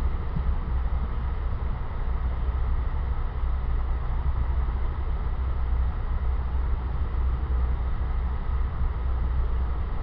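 Steady low rumble inside an ex-Metroliner passenger cab car running at speed: wheels on the rails and the car body, strongest in the deep bass, unbroken throughout.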